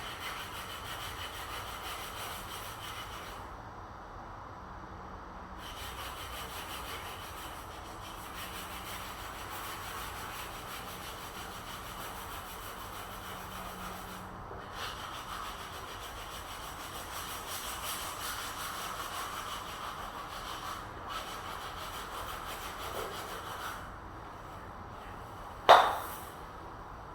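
Wood being sawn: a steady scratchy cutting sound that stops briefly a few times, then one sharp knock near the end.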